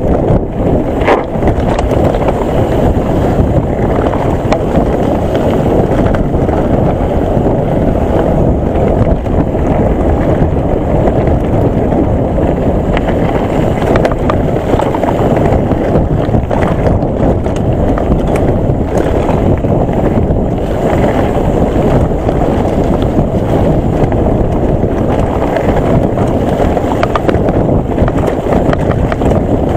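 Wind buffeting the microphone of a camera on a mountain bike riding fast down a rough gravel and dirt track, a steady loud rumble, with the Nukeproof Mega's tyres crunching over stones and scattered knocks and rattles from the bike.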